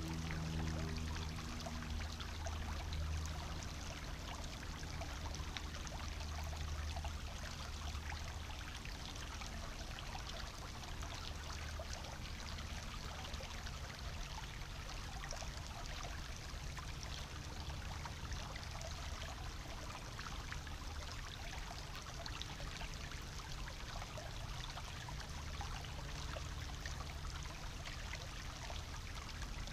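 Small shallow forest brook babbling and trickling over stones, a steady even flow.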